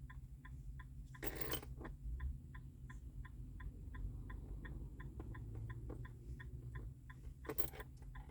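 Rapid, steady electronic ticking from the car, about three ticks a second, like a warning chime. Keys jangle briefly about a second in and again near the end.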